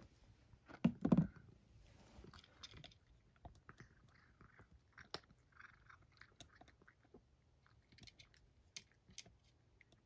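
A domestic cat chewing dry kibble, with irregular crisp crunches and clicks of its teeth. There is a louder dull thump about a second in.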